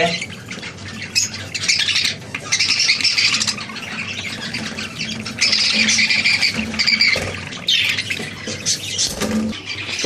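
Budgerigars squawking again and again, harsh and scratchy, at a nest pot where the first chick has just hatched.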